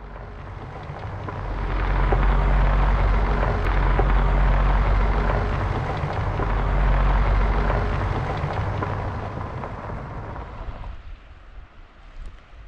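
Strong wind blowing over the microphone: a deep buffeting rumble under a rushing hiss, swelling up over the first couple of seconds and dying away near the end.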